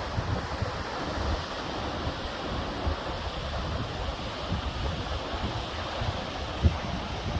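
Steady rushing roar of a waterfall's falling water, mixed with wind buffeting the microphone in uneven low gusts and one sharper bump near the end.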